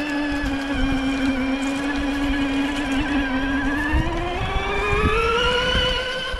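Robbe Rodeo 6x6 RC truck's electric drive motor and gears whining steadily, the pitch rising about four seconds in as the truck speeds up.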